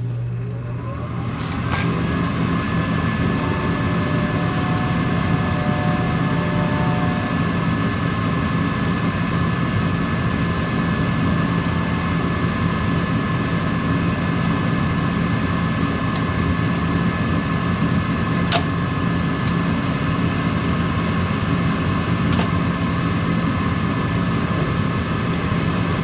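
Trane 80% gas furnace's draft inducer motor starting, its pitch rising over the first couple of seconds and then running as a steady hum, with one sharp click about two-thirds of the way through. This is an ignition attempt in which the burners fail to light off the hot surface igniter.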